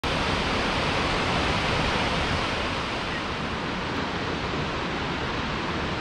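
Waterfall: a steady, even rushing hiss of falling water.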